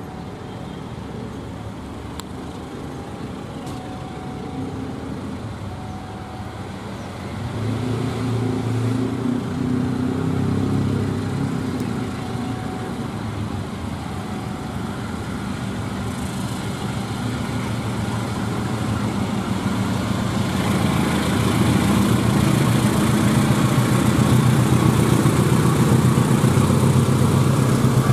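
Engine noise growing steadily louder, with a deep engine hum that swells about a third of the way in and builds again toward the end.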